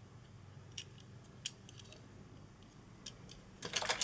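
Light clicks of a die-cast toy car's hinged hatch being worked by hand, sparse at first. Near the end comes a quick run of clicks and clatter as the small cars are handled against the plastic storage case.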